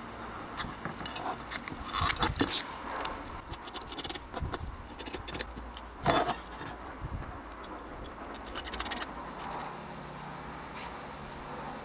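Irregular scratching and scraping as masking tape is pressed and rubbed onto the iron beam of an old kitchen scale, with louder scrapes about two seconds and six seconds in.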